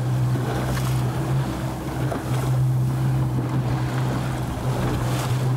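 The motor of a single-engine boat running with a steady hum, under water rushing past the hull and wind buffeting the microphone.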